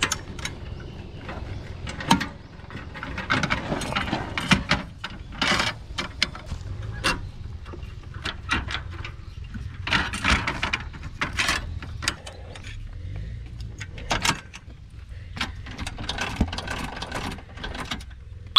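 Irregular metallic clicks and clanks from a camping trailer's steel jack stands being lowered, adjusted and pinned into place.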